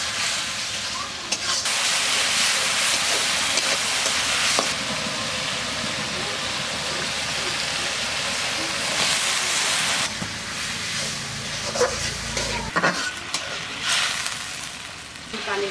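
Curry sauce sizzling in a black iron wok while a metal spatula stirs it. The sizzle is strong for about the first ten seconds, then dies down, with a few scrapes and knocks of the spatula against the pan near the end.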